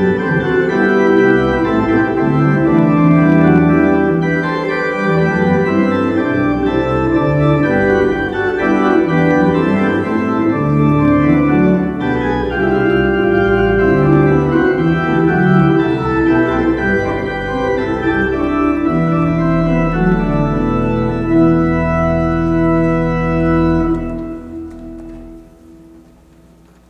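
Organ playing slow sustained chords, ending on a long held final chord over a deep pedal bass note that fades away near the end.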